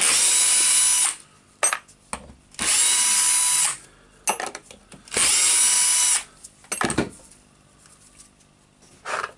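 Power screwdriver running in three short bursts of about a second each, with a steady whine, backing out the small screws of the demolition hammer's casing cover. Short clicks come between the runs.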